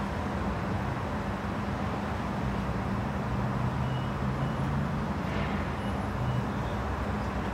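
South Western Railway Class 444 Siemens Desiro electric multiple unit standing at the platform, its onboard equipment giving a steady hum with a low drone underneath.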